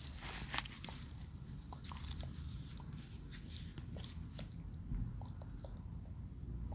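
Leopard tortoise biting and chewing its food: irregular crisp crunches and clicks, several a second, the loudest about half a second in.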